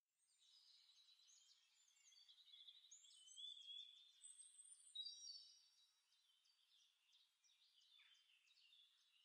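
Faint woodland birdsong: several small birds chirping and trilling in quick, high notes, a little louder around the middle.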